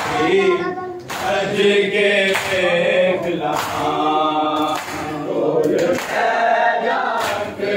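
A group of men chanting a Muharram lament (nauha) together in long, swaying phrases, with hands slapping bare chests in matam beneath the chant.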